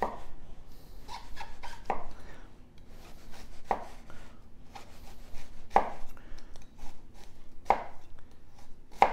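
Hedley & Bennett chef's knife slicing into a halved onion on a wooden cutting board: about six short, crisp cuts, roughly two seconds apart. The blade goes through cleanly without crushing, the sign of a sharp edge.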